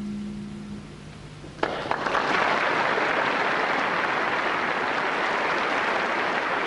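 A soft held orchestral chord dies away, and about a second and a half in an audience starts applauding suddenly and keeps clapping loudly.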